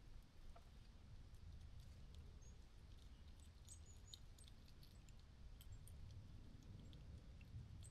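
Near silence: faint background with scattered soft high ticks and a few very brief high chirps.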